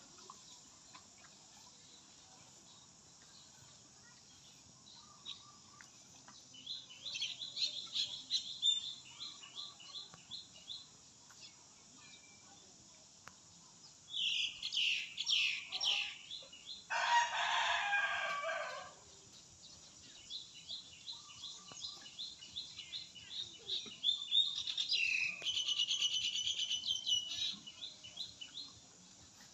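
Birds calling outdoors in runs of quick repeated high chirps. Partway through, one louder call lasting about two seconds, a rooster crowing.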